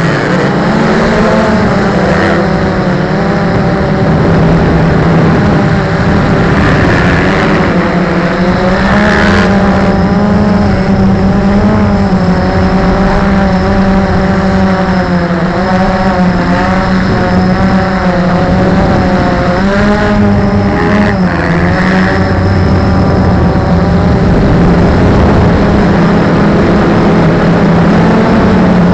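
Steady, loud hum of a small aircraft's motor and propeller heard from on board, its pitch wavering slightly up and down.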